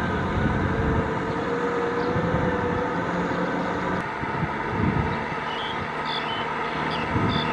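Kubota M6040SU tractor's diesel engine running steadily under load as it pulls a rotary cultivator through flooded paddy mud.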